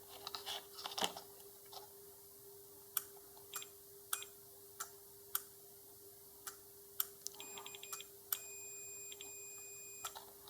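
Several sharp clicks, then a multimeter's continuity beeper: a stuttering beep as the probes touch the contacts, then a steady beep for about two seconds, showing a closed relay contact.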